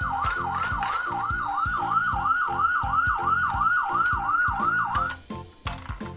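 Siren in a fast police-style yelp, its pitch sweeping up over and over about three times a second, over background music with a steady beat. The siren cuts off about five seconds in.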